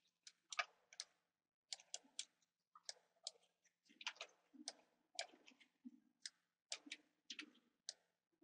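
Quiet computer mouse clicking: irregular short clicks, about two or three a second, some in quick pairs, over a faint steady low hum.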